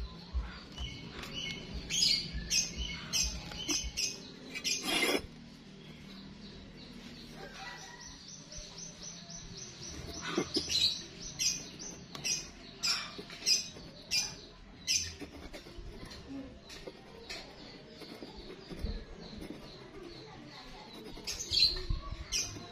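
Small birds chirping in short, repeated calls, about one or two a second, with a quieter stretch in the middle. There is one sharp knock about five seconds in.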